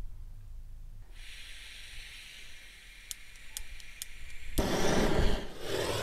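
Propane hissing from a hand gas torch fed by a hose from a red gas cylinder, with a few sharp igniter clicks, then the torch lights about four and a half seconds in and the flame burns loudly and steadily.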